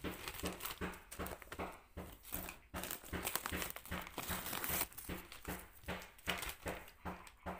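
Clear plastic zip-top bag crinkling and rustling in the hands as it is opened and handled, a rapid string of short crackles.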